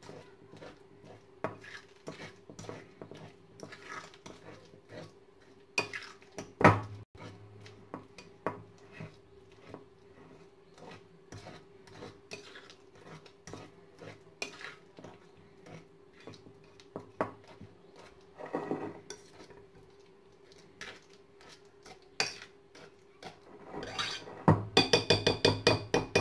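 Ripe bananas being mashed by hand in a glass bowl, with many small soft clicks and knocks and a sharp knock about six seconds in. Near the end a fork beats against the glass bowl in a fast run of clinks, about eight a second. A faint steady hum runs underneath.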